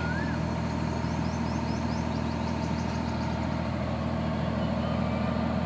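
Sonalika DI 45 RX tractor's diesel engine running steadily at an even speed, hitched to a trailer loaded with soil.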